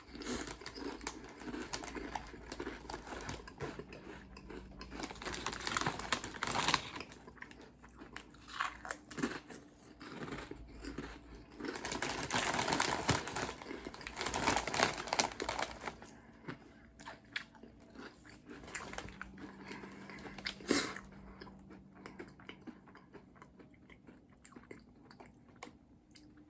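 A person crunching and chewing thick-cut potato chips, in an irregular run of crisp bites with busier spells and quieter chewing between.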